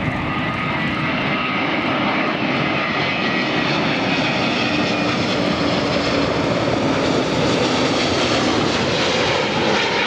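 Airbus A350 XWB's Rolls-Royce Trent XWB jet engines roaring as the airliner passes low overhead on approach. The sound gets louder over the first two seconds, then holds steady, with a faint whine riding on the rushing noise.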